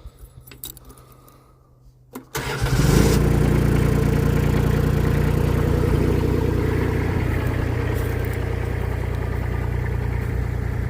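Mini skid steer's diesel engine started on the key: a few small clicks, then about two seconds in it fires up, runs loudest for a moment and settles into a steady idle.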